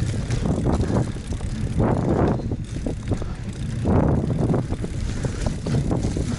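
GT Avalanche hardtail mountain bike ridden over a dirt trail: tyres crunching on sand and leaves, with the bike rattling over bumps, loudest about two and four seconds in. A steady low rumble runs underneath.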